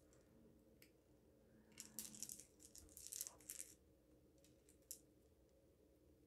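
Faint clicking and rattling of faceted plastic beads and small metal chain links knocking together as a bead necklace is taken apart with pliers. A cluster of clicks comes a couple of seconds in, then a few lighter ticks.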